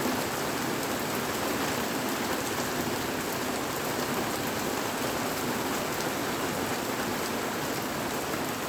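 Heavy rainstorm pouring down: a steady hiss of rain with the scattered ticks of single drops striking surfaces.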